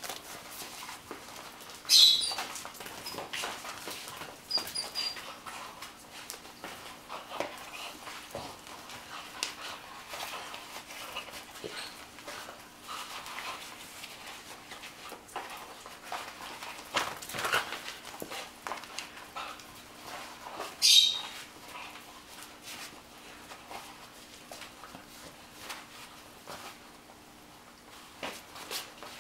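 A puppy biting and tugging at a bite rag on a tile floor, whimpering, with the rag flapping and scuffing. Two short, sharp, high-pitched sounds stand out, about two seconds in and again about twenty-one seconds in.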